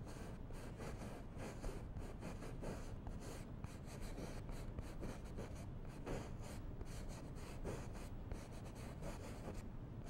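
Bristle brush scratching on canvas in short, quick repeated strokes as oil paint is blended, the strokes stopping just before the end.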